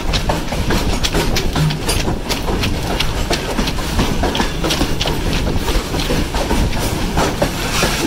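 Freight train wagons rolling along the track, with a steady rumble and a busy clatter of clicks from the wheels on the rails.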